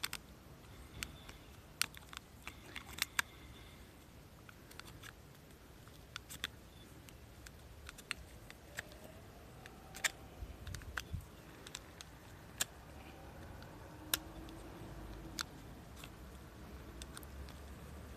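Utility knife cutting into the hard stem of a Euphorbia acrurensis, giving faint, irregular crisp clicks and snaps, several close together in the first few seconds and then single ones every couple of seconds.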